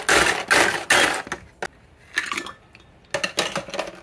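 Ice cubes rattling and scraping as a plastic scoop digs through a countertop ice maker's basket for about a second, then a couple of bursts of cubes clinking into a glass measuring cup of coffee.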